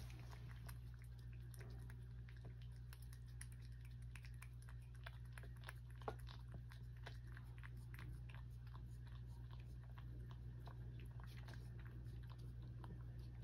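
A cat licking a paste treat (Churu) from a small dish: quick, faint, wet licking clicks, several a second, with one sharper tick about halfway through.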